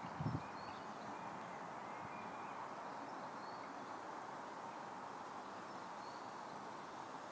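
Steady outdoor background hiss, with a single low thump just after the start and a few faint, short, high bird chirps scattered through.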